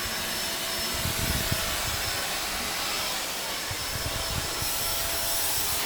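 Vacuum cleaner running steadily as it is pushed over the floor, with a faint whine and a few dull bumps about a second in and again near four seconds.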